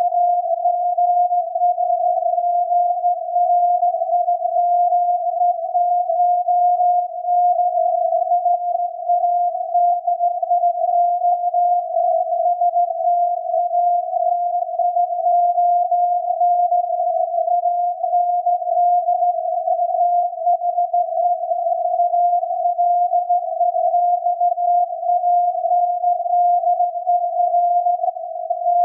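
The 17.2 kHz VLF signal of SAQ, the Grimeton Alexanderson alternator transmitter, received on a loop antenna and SDR and heard as a steady beat tone of about 700 Hz. The tone sits in a narrow band of filtered static and wavers slightly in pitch and strength.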